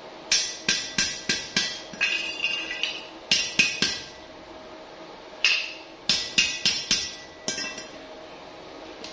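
A small hammer striking a steel pipe: sharp, ringing metallic blows in quick runs of three to five, with a pause of about a second and a half midway.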